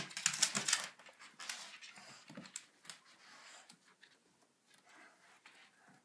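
A small pug-type dog's nails scrabbling and clicking as it drops down from the window and moves about: a loud burst of rapid clicks in the first second, then fainter scattered ticks.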